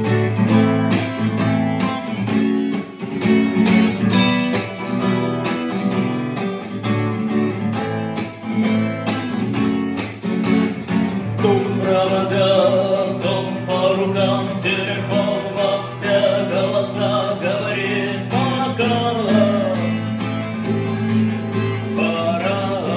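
Instrumental intro of a song: rhythmic strummed guitar over a steady bass and beat, with a lead melody line joining about halfway through.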